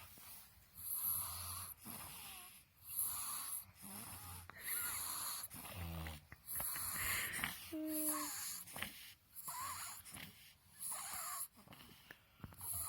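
A sleeping baby snoring through a blocked nose: congested, wheezy breaths every second or two, whistling in the nose, with one brief pitched note about eight seconds in.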